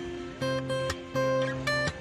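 Film soundtrack music from the cinema speakers: chords struck in short, sharp stabs in a driving rhythm.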